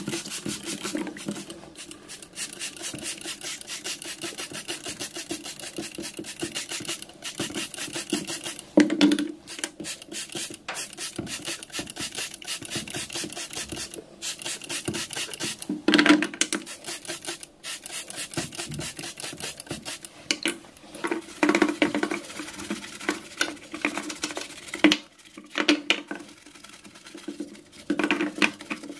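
Rapid, even back-and-forth scrubbing strokes, with a few louder strokes partway through, becoming more broken and uneven in the last third.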